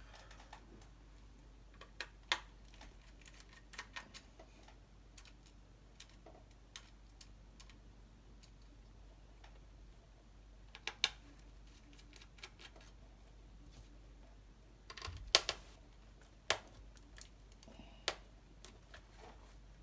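Sparse small clicks and taps at uneven intervals: a screwdriver working out the screws of a laptop's cooling-system heatsink, and the tiny screws set down on a work mat. The loudest cluster comes about fifteen seconds in.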